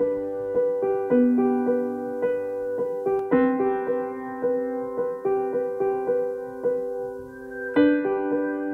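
Background piano music: a gentle pattern of notes struck about twice a second.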